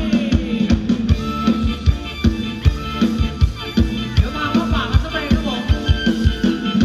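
Live band playing Thai ramwong dance music: a drum kit keeps a steady beat under electric guitar and a melodic lead line.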